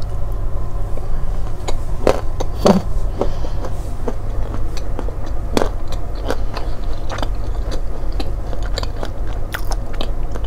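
Close-miked chewing of a soft Sukkari date stuffed with salted butter and almond, with irregular small crunches as the almond is bitten through, over a steady low hum.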